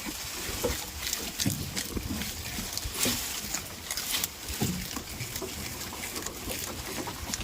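Goats close by making short low grunts and snuffles, among many small clicks and rustles.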